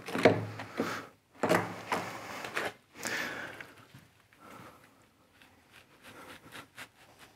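Handling noise of clay brick slips: knocks and clunks as the pieces are picked up and moved, with clothing rustle on a clip-on microphone. Three louder bursts in the first three seconds or so give way to faint scraping and clicks as a slip is pressed into the mortar bed.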